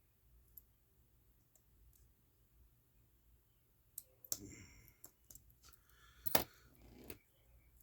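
Small watchmaking hand tools clicking and tapping against a pocket watch movement: quiet for about four seconds, then a run of light clicks and taps with faint scraping between them, the sharpest click a little after six seconds in.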